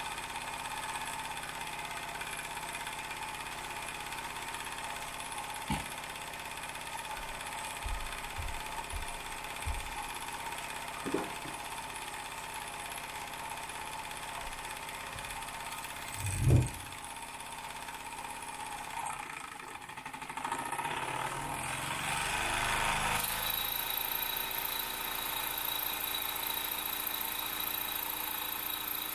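Wilesco D20 toy steam engine running steadily, with a continuous mechanical hum and a few light knocks, the loudest about 16 seconds in. From about 20 seconds a hiss builds, and about 23 seconds in a steady high-pitched tone joins and holds.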